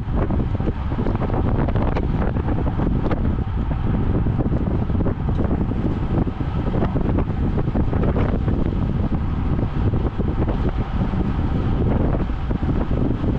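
Steady, heavy wind noise rushing over the microphone of a road bike moving at about 55–60 km/h.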